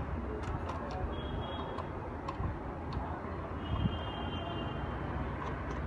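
Scattered small ticks and clicks as screws are undone from a Bluetooth speaker's casing with a screwdriver, over a steady low background hum.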